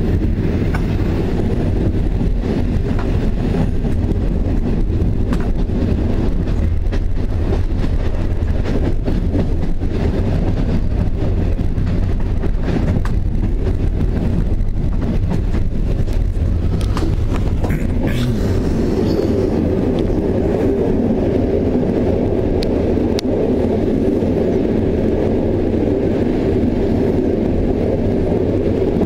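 Passenger train running at speed, heard from a carriage window: a steady rumble of wheels on rails with scattered sharp clicks. About eighteen seconds in the deep rumble eases and a higher rushing sound takes over.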